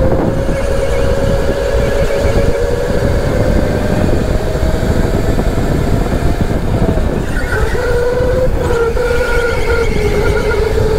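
Electric go-kart motor whining at racing speed, a steady high whine that climbs slightly and then dips about seven seconds in, over a constant low rumble.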